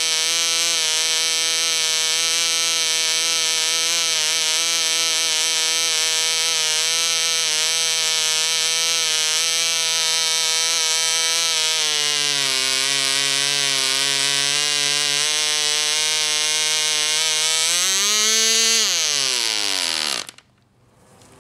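P.A.W. 1.49 cc model diesel (compression-ignition) engine running at high revs on a test stand, about 9,800 rpm, changing speed about twelve seconds in. Near the end its revs surge briefly as the fuel is cut, then it winds down quickly and stops.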